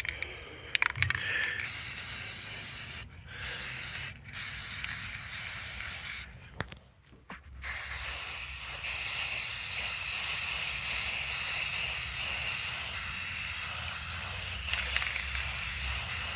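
Aerosol spray paint can spraying: a few short sprays broken by brief pauses, then one long continuous spray through the second half.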